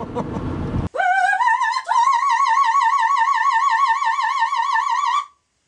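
Just under a second of low background noise cuts off, then a female opera singer comes in, scooping up into a high note. About a second later she leaps higher and holds that note with a wide vibrato for some three seconds before stopping abruptly.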